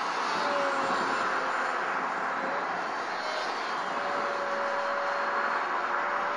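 Brushless electric motor and small propeller of a radio-controlled Electrasport plane running under power overhead, a steady thin whine that drops out briefly about three seconds in, over a steady hiss.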